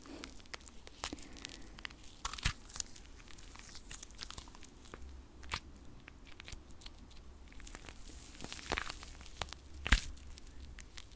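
Close-miked ASMR hand sounds: palms and fingers rubbing and pressing together, giving scattered crisp, crackling clicks, with one sharper click near the end.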